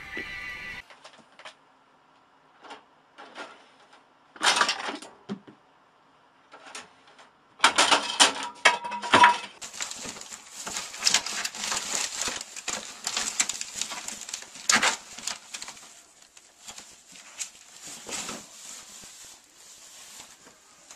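A ferret burrowing and scrambling in a plastic bag, the plastic rustling and crinkling in quick irregular bursts. The crinkling grows dense and continuous from about ten seconds in.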